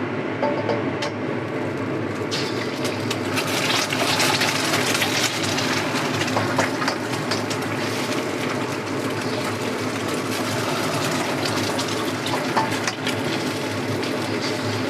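Hot oil sizzling and crackling in a wok as eggs fry, the sizzle growing louder and brighter about two seconds in, over a steady background hum.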